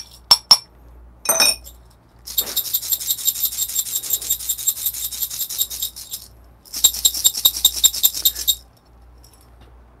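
Whole coffee beans swirled around a stainless steel dosing cup: a few clinks, then fast rattling with a metallic ring in two stretches, about four seconds and then about two. This is the beans being mixed after a single water droplet (RDT) to cut static before grinding.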